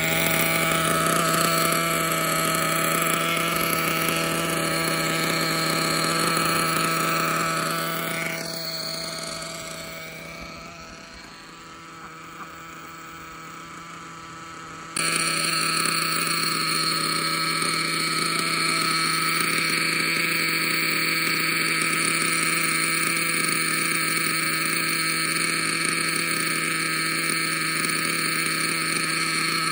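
Novarossi Bonito 21-size 7-port nitro engine idling steadily, run very rich for break-in. It grows fainter for several seconds partway through, then comes back at full level suddenly.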